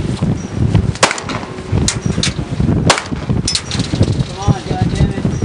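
Gunshots from a tactical shooting match, about half a dozen sharp reports at irregular intervals. A steady rumble of wind on the microphone runs under them.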